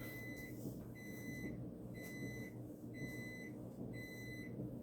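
Microwave oven's end-of-cycle signal: five high electronic beeps, about one a second, each lasting about half a second, marking that the cooking time has run out.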